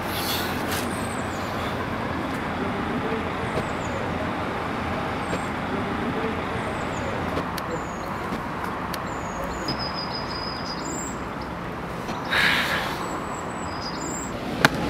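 Steady street traffic noise, with a few faint high chirps scattered through and a brief louder swell near the end.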